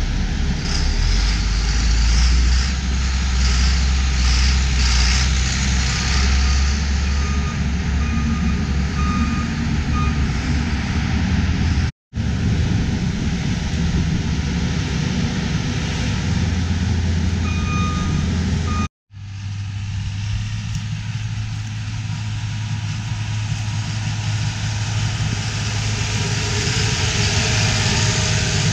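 Diesel engines of a John Deere tractor and a New Holland skid steer loader running, with a backup alarm beeping in short runs. The sound cuts out abruptly twice, and then a John Deere tractor's diesel engine runs steadily as it pulls a manure spreader.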